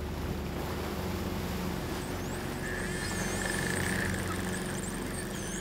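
A boat engine running steadily on open water. From about two seconds in, high, quick chirping bird calls sound over it.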